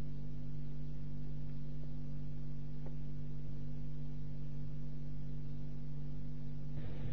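Steady low electrical mains hum, a few unchanging low tones with a faint buzz.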